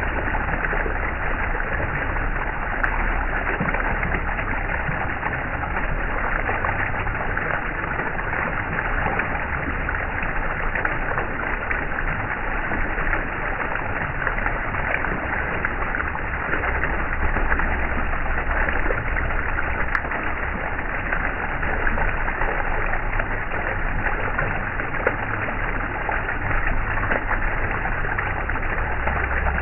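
Steady rushing of flowing water, an even wash of noise that does not change.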